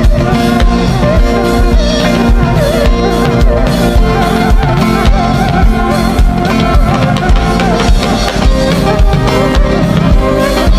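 Worship band music with a drum kit keeping a steady beat.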